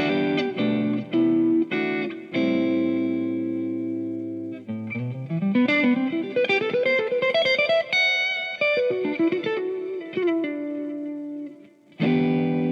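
Electric guitar played through a Kemper profiler into the Kemper Cab speaker cabinet, with the Kemper Cone function and the cab's bass switched on. Several struck chords and a held chord, then a rising single-note run and a falling phrase settling on held notes, a short break, and a fresh chord near the end.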